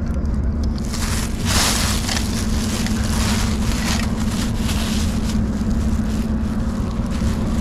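Thin plastic shopping bag crinkling and rustling as it is handled close to the microphone, in irregular bursts starting about a second in, over a steady low hum.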